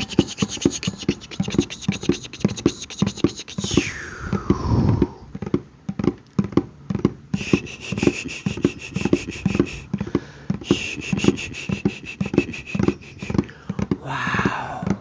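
ASMR mouth sounds close to the microphone: fast wet clicks and pops with low thumps, a falling sweep about four seconds in, and a steady high tone laced with rapid clicking in the middle.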